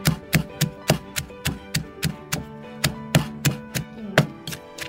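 Wooden pestle pounding green chilies in a clay mortar, with sharp regular strikes about three times a second as the chilies are crushed to a paste. Plucked-guitar background music plays underneath.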